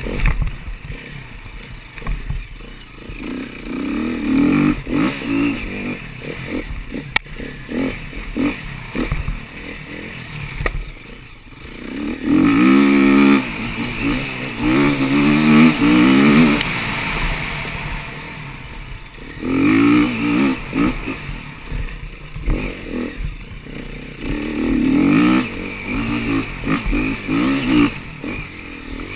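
Enduro dirt bike engine revving up and dropping off again and again as it is ridden over a rough dirt trail. The hardest surges come about halfway through and again near the end, with clattering knocks from the bouncing bike in between.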